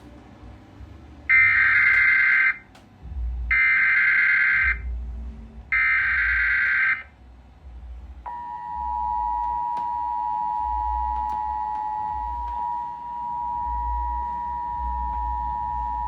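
Emergency Alert System tones. Three short bursts of SAME digital header data, each a buzzing electronic screech about a second long, come about a second apart. Then the steady two-tone EAS attention signal (853 and 960 Hz played together) starts and holds for about eight seconds.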